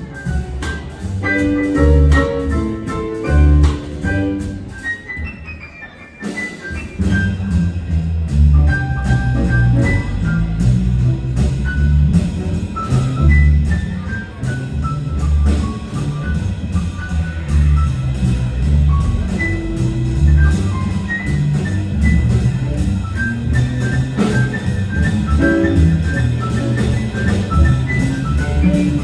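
Band music in an instrumental passage without vocals: drums and bass under a melodic lead. It thins out briefly about six seconds in, then the full band comes back.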